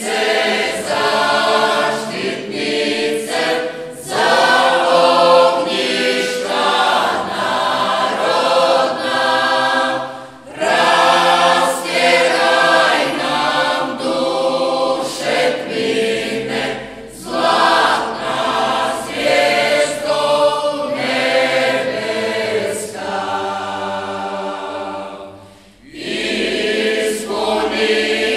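Mixed choir of men's and women's voices singing a traditional Marian hymn without accompaniment, in long phrases with two brief breaths between them, about ten seconds in and a couple of seconds before the end.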